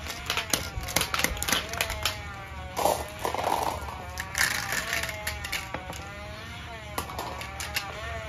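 Plastic B-Daman marble-shooter toy firing: irregular sharp clicks and knocks of the trigger and of glass marbles striking each other and the target pins, several a second at times, with a brief scraping rustle of handling about three seconds in.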